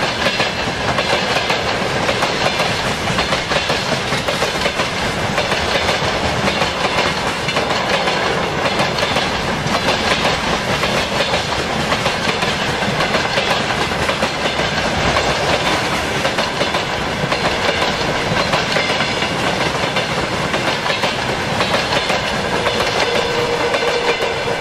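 Freight train wagons rolling past close by, a steady loud rumble and rattle of steel wheels on the rails with a clickety-clack over the rail joints. A steady tone joins near the end.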